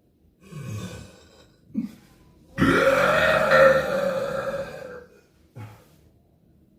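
A person burping: a shorter burp about half a second in, then a long, loud, drawn-out burp of over two seconds whose pitch rises and then holds.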